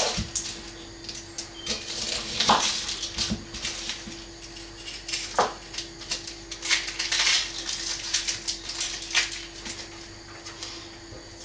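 Dry onion skin crackling and rustling as an onion is peeled by hand, with three sharp knocks on a wooden chopping board, over a faint steady hum.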